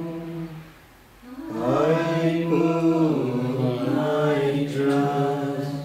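Voices chanting a devotional bhajan in long held notes. One phrase dies away just after the start, and after a short pause a new phrase begins about one and a half seconds in and carries on almost to the end.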